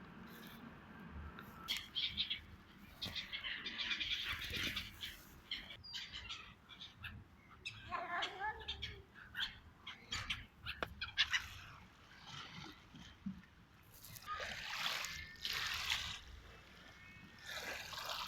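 Birds chirping in short, repeated high-pitched bursts over faint outdoor background noise, busiest a couple of seconds in and again near the end.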